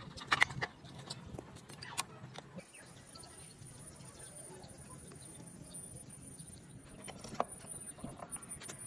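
A few sharp metal clinks and taps from handling motorcycle rear-wheel parts and the axle, loudest about half a second in, with a quieter stretch in the middle.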